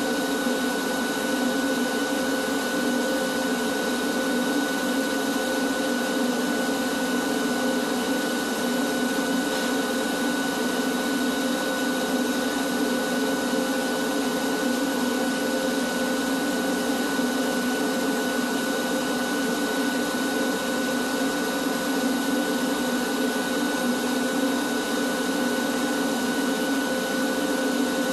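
Wet/dry shop vacuum running steadily, an even motor whine with its hose drawing dust off the ceiling beams and pipes.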